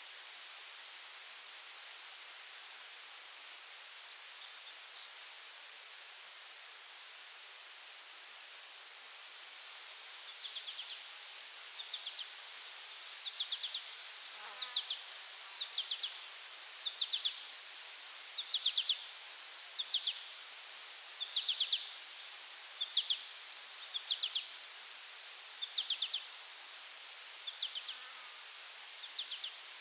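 Forest insects: a steady, high-pitched insect drone, joined about a third of the way in by short pulsed chirps repeating roughly once a second.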